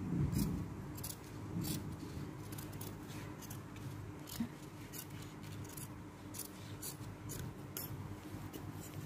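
Large tailor's shears cutting lining fabric along a paper pattern: repeated crisp snips as the blades close, irregularly about one or two a second, over a steady low hum.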